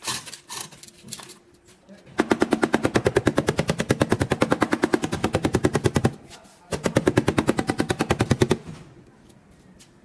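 A pneumatic power tool hammering in rapid, evenly spaced blows, in two bursts of a few seconds each with a short pause between.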